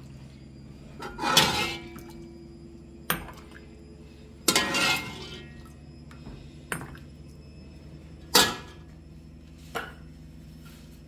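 A metal ladle clinking against a pot and a glass jar as hot syrup is ladled into a jar: about six sharp clinks and knocks, two of them drawn out into about a second of pouring liquid. A faint steady hum runs underneath.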